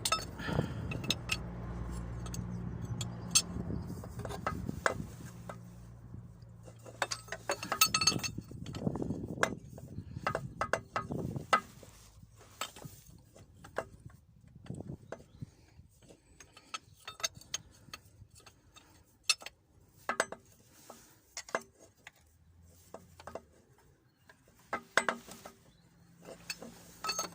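Metal hand tools clinking and tapping against engine parts: many light, irregular clinks and clicks with pauses between them. A low steady hum runs underneath for the first several seconds, then stops.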